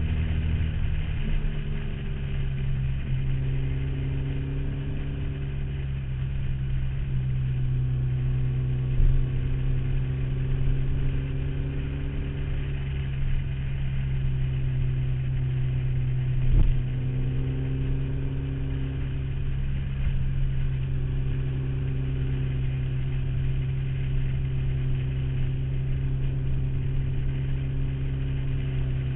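Motorcycle engine and exhaust running while riding, its pitch stepping up and down every few seconds with throttle and gear changes, over a high-pitched rustle from the saddlebag mounting. Two brief thumps, about nine seconds in and a louder one about seventeen seconds in.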